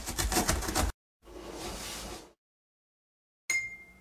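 Cartoon sound effects: a fast rasping of a box cutter slicing packing tape for about the first second, then a soft whoosh, and near the end a short hit with a brief ringing tone.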